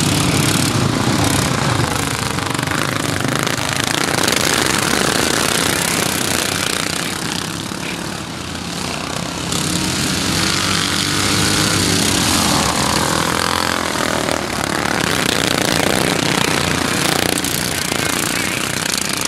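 Engines of several racing riding lawn mowers running hard as the pack laps the track, a continuous buzzing engine noise that swells and fades as the mowers come nearer and move away.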